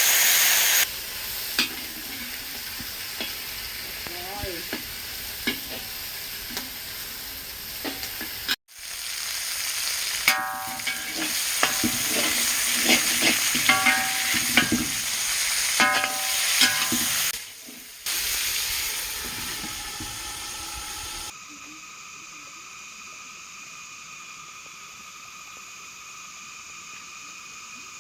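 Food sizzling as it is fried and stirred in a pan, with repeated clinks and scrapes of stirring. The sound cuts abruptly several times, and in the last few seconds gives way to a quieter, steady hiss.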